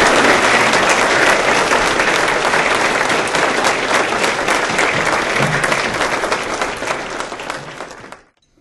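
Audience applauding: dense, steady clapping that thins out in the last second or so and then cuts off abruptly.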